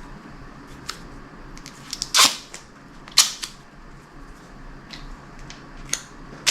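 A few sharp clicks and snaps from small hardware and tape being handled on a motorcycle trunk lid, with two louder snaps about two and three seconds in.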